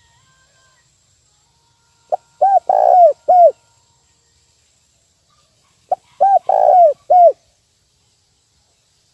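Spotted dove cooing: two call phrases about four seconds apart, each a quick short note followed by a few low arched coos with a longer rolling coo in the middle.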